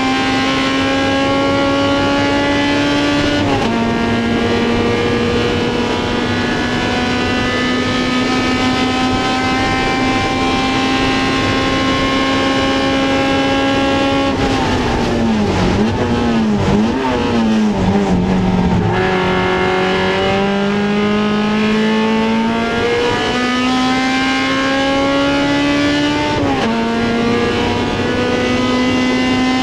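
Honda CRX race car's four-cylinder engine running at high revs, with an upshift about three and a half seconds in. Midway it drops through the gears with quick throttle blips, then climbs back up through the gears with two more upshifts and a few blips near the end.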